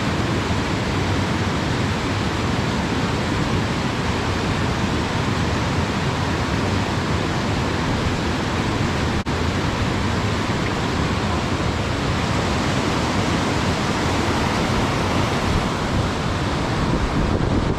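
Steady, loud rush of a large river's flowing water, an even noise with a momentary break about nine seconds in.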